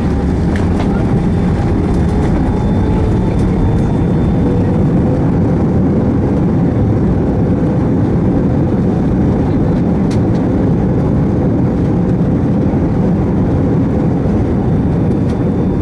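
Airbus A320 heard from inside the cabin while rolling on the ground after landing: a steady, loud roar of the jet engines and the wheels, with faint whines that slowly drift in pitch.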